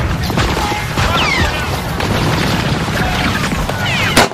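Battle sound effects: a dense, loud din of explosions and gunfire, ending in one last sharp crack before cutting off suddenly.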